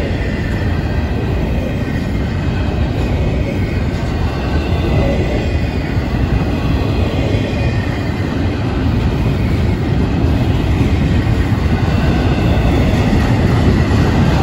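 Double-stack intermodal freight train's well cars rolling past: a steady rumble of steel wheels on rail, growing a little louder near the end.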